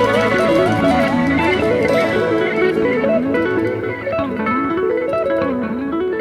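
Background music: a guitar-led melody of quick plucked notes stepping up and down.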